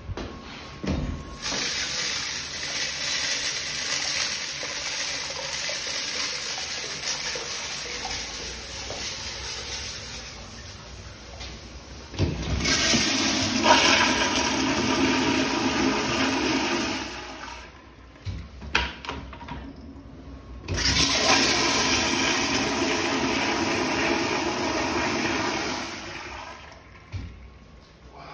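A Sloan flushometer urinal flushing with a long rush of water that tapers off, then a Mansfield flushometer toilet flushed twice, each a loud, forceful rush of water lasting about five seconds, with a few short knocks between the two flushes.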